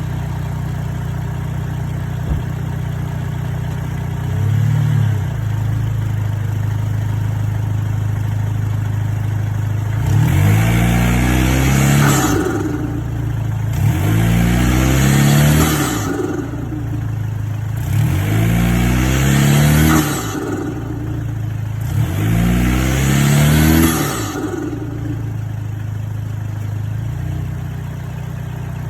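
Stock Lexus IS200t's 2.0-litre turbocharged four-cylinder idling, blipped once, then revved four times about every four seconds. Each rev rises and falls in pitch, with the turbo spooling up and fluttering as the throttle closes.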